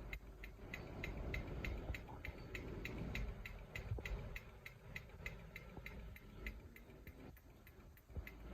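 Hampton Bay Huntington II ceiling fan running on high speed: a low steady rumble of the motor and moving air, with a rapid, even ticking about four times a second.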